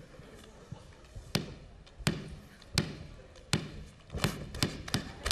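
A series of sharp thuds, about one every 0.7 seconds at first and coming faster, roughly two or three a second, toward the end.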